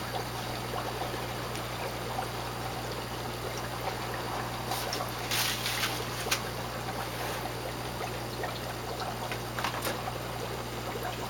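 Steady trickling and bubbling of water as air bubbles rise up an upflow algae scrubber on a small aquarium and break at the surface, over a steady low hum from its pump running on high. A few light clicks come about halfway through and again near the end.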